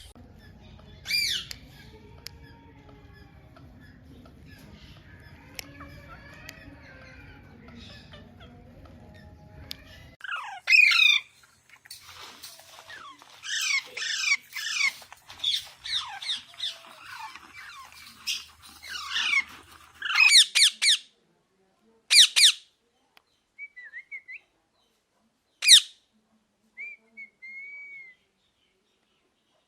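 Rose-ringed (green ringneck) parrot screeching: a dense run of rapid, harsh squawks in the middle, then several single loud shrieks and a few short whistled notes near the end.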